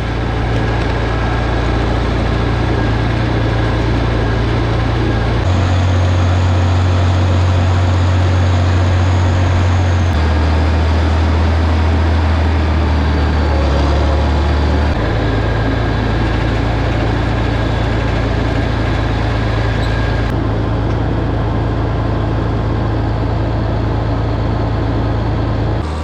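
Farm tractor engine running steadily, its low drone moving to a different steady pitch every few seconds.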